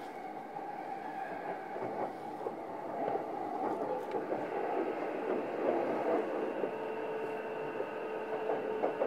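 Running sound of a JR East E233-7000 series electric train, heard from inside motor car MoHa E233-7415: the steady rolling noise of the moving train, with a steady tone coming in about two-thirds of the way through.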